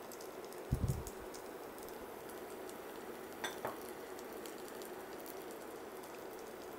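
Green pea cheela batter frying in oil in a non-stick pan, a steady soft sizzle. A soft low bump comes about a second in, and a light clink from the steel spoon and oil jug comes about three and a half seconds in.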